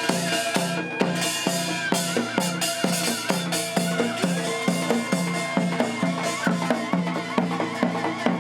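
Ceremonial music with a steady drum beat of about two to three strokes a second under a sustained, wavering melody, in the style of Korean traditional music played for the wedding rite.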